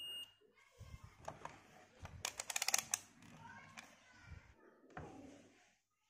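A multimeter's continuity-test beep, one steady high tone, stops just after the start. Then come small clicks and knocks of handling, with a fast run of about ten sharp clicks in the middle.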